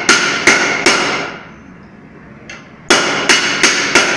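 Hammer blows on a warped pressure-cooker lid, beating it back into shape after it swelled along with the pot. There are three blows, a pause of about two seconds, then four more, each one ringing briefly like struck metal.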